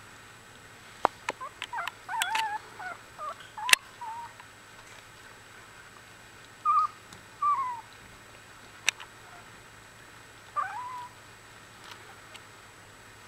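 One-week-old Australian Bulldog puppies making short, wavering high squeaks and whines in three bouts. A few sharp clicks come in between.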